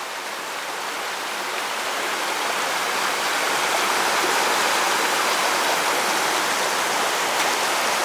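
Mountain river rushing at a ford: a steady, dense noise of running water that grows louder over the first few seconds, then holds.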